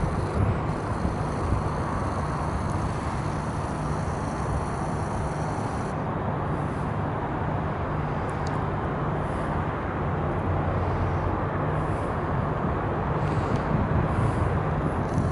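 Fishing trawler's diesel engine running steadily, a low hum with the outdoor air noise of the harbour.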